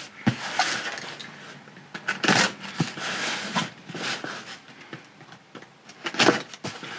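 Packaging being handled: irregular rustling and crinkling, with several sharp clicks and taps.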